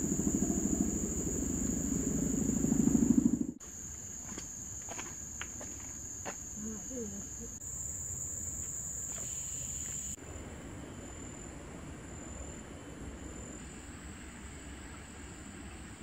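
Steady high-pitched drone of forest insects, broken by abrupt cuts. For the first three and a half seconds a louder low buzzing rattle swells and then stops suddenly, and a few faint clicks follow.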